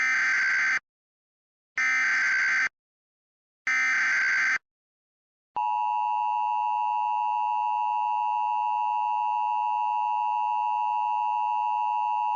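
Emergency Alert System SAME header: three short bursts of screechy data tones about two seconds apart. About five and a half seconds in, the steady two-tone EAS attention signal starts and holds.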